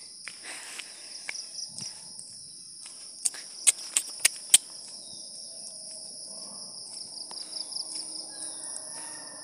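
Steady high-pitched buzzing of an insect chorus, with a quick run of five sharp clicks between about three and four and a half seconds in.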